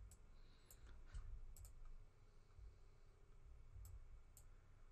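About half a dozen faint, irregularly spaced clicks of a computer mouse over a quiet room.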